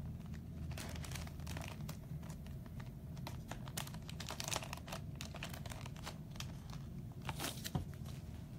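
Light crinkling and rustling of paper and card packaging being handled, in scattered short rustles and faint clicks over a low steady hum.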